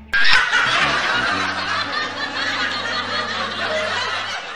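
Canned laughter: a crowd of people laughing together, coming in suddenly and loud, with a low steady tone underneath.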